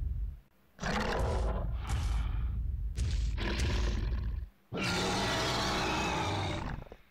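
Film-style Tyrannosaurus rex sound effects: several shorter deep animal calls, then one long roar starting near five seconds in and lasting about two seconds as the jaws open wide.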